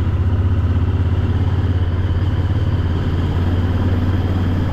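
Honda XL1000V Varadero's V-twin engine running steadily at low speed as the motorcycle picks its way along a rough, potholed lane, with a deep pulsing exhaust note over road noise.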